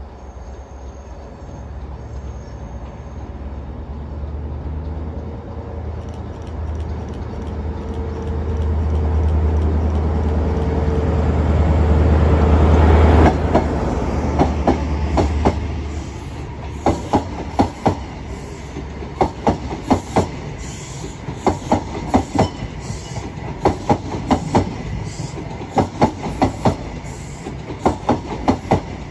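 InterCity 125 HST class 43 power car, with an MTU diesel engine, running in along the platform: a deep engine drone builds to its loudest as the power car passes about halfway through. Then the Mark 3 coaches roll past with repeated paired clickety-clack from the wheels over the rail joints.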